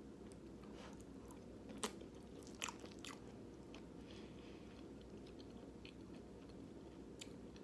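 Quiet close-up chewing of a mouthful of vegan chili and rice, with a few sharp wet mouth clicks about two to three seconds in and again near the end.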